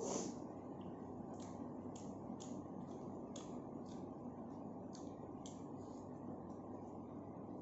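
Faint mouth sounds of eating with the fingers: wet chewing and lip smacks, heard as short irregular clicks about once or twice a second over a steady low background hum.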